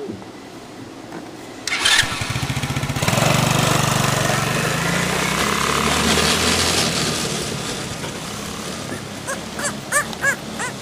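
Small youth ATV engine starting about two seconds in, catching with fast even firing, then running loud and revving as the quad pulls away, fading as it drives off. A few short high calls near the end.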